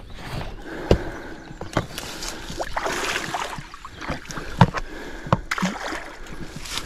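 A hooked Atlantic salmon splashing and thrashing at the water's surface near the bank while it is played on the line, with a few sharp knocks close to the microphone.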